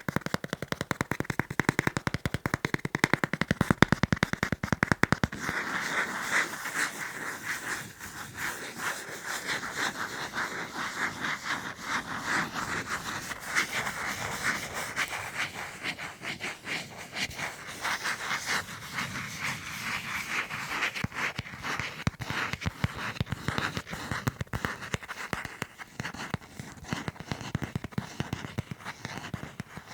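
Fast tapping and scratching by hand on the items of a fan-club membership kit, a dense run of quick clicks. The first few seconds have louder, deeper taps; after about five seconds the taps turn lighter and denser, mixed with scratching.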